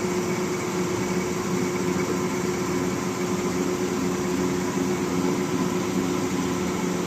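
Okamoto CNC universal cylindrical grinder running: a steady machine hum with a few held tones over a hiss, unchanging throughout.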